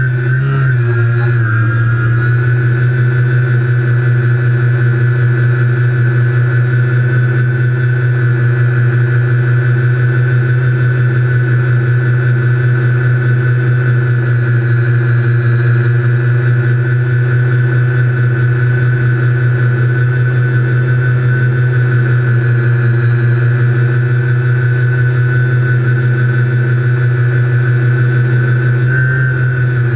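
TBS Discovery quadcopter's brushless motors and propellers running in flight: a loud, steady hum with a high whine above it. The pitch wavers briefly near the start and again near the end.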